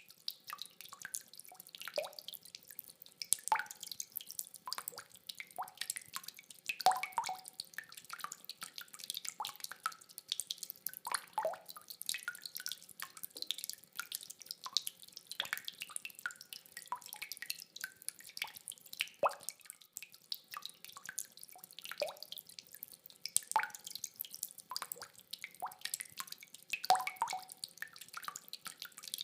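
Rainwater dripping steadily: many irregular drops land several times a second, some with a short pitched plink. No thunder.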